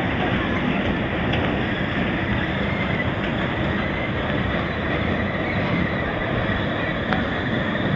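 Kiddie-ride toy jeeps running along their guide track: a steady, unbroken running noise with a faint high whine.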